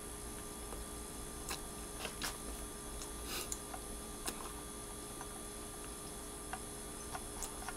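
Quiet room tone with a steady electrical hum, broken by a few faint, scattered clicks and ticks.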